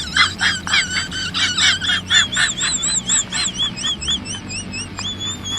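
A rapid run of high-pitched squeaky notes, about four a second, each rising and falling in pitch, slowing and growing weaker toward the end before one last held note.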